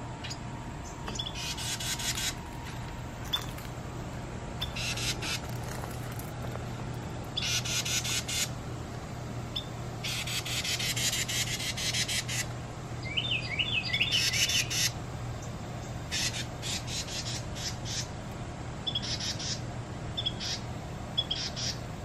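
Carolina wren calling in repeated bursts of rapid chattering notes, the longest lasting about two seconds in the middle, with short high chip notes between the bursts. The speaker takes it for the parent calling to its newly fledged young.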